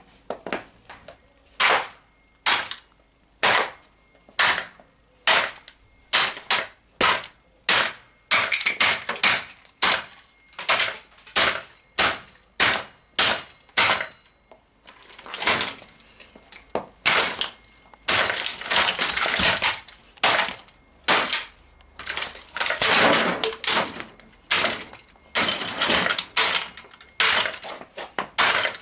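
Repeated blows smashing a 1/5-scale radio-controlled car, its plastic body and parts cracking and breaking, roughly one or two strikes a second, with a few longer crunching spells in the second half.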